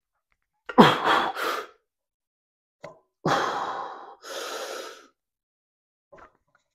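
A man breathing hard from the exertion of a heavy overhead log press: two sharp, forceful breaths, each followed by a longer hissing breath.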